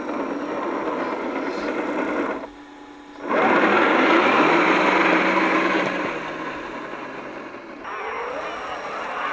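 Brushed 540-size 27-turn electric motor and gear drivetrain of a 1:10 scale RC crawler whining under throttle on a dirt trail. It cuts out briefly a little past two seconds in, comes back louder for about three seconds, then eases off, with a rising whine near the end.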